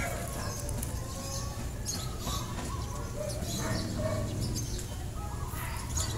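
Chickens clucking now and then, over a steady low rumble.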